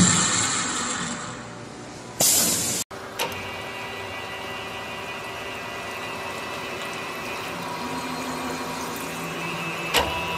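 Multi-spindle drilling head running and winding down, followed by a short loud hiss. Then a second multi-spindle head machining with coolant: a steady hum with faint high whines and the wash of coolant flowing over the workpiece, with one sharp click near the end.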